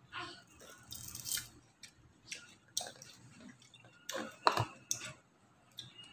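Two people biting and chewing slices of raw apple mango close to the microphone: irregular short crunching sounds, loudest about four to five seconds in.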